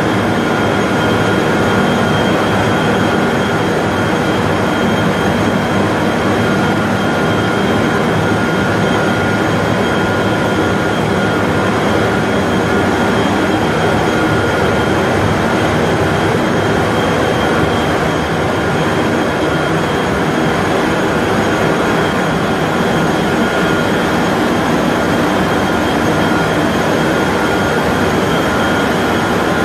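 Paper-making machine running in a mill hall: a steady industrial roar that does not change, with a few steady high whining tones over it.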